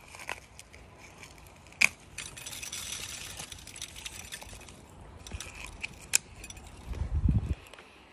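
Crunching and chewing of a dried cascabel chilli in a person's mouth. There is a sharp crunch about two seconds in, then a stretch of crackly chewing and a few more clicks. A low muffled rumble comes near the end.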